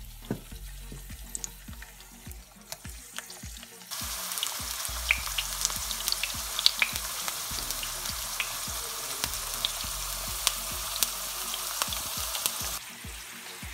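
Thin potato slices deep-frying in hot vegetable oil in a frying pan: a hiss of sizzling with scattered pops and crackles. It steps up suddenly to a much louder, fuller sizzle about four seconds in and drops back shortly before the end.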